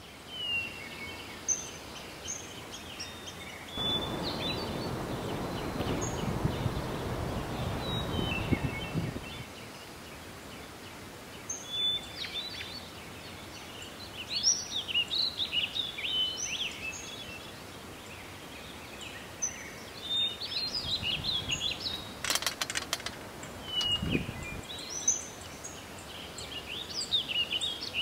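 Small songbirds chirping and twittering over outdoor city ambience. About four seconds in, a low rushing noise swells for about five seconds and fades; later come a short clatter of clicks and a low thump.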